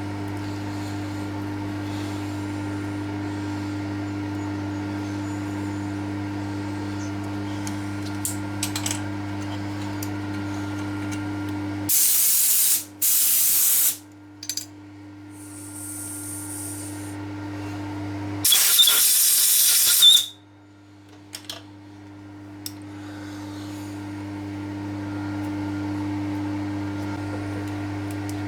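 Steady workshop machine hum, broken by loud hissing blasts: a short double blast about twelve seconds in and a longer one about eighteen and a half seconds in.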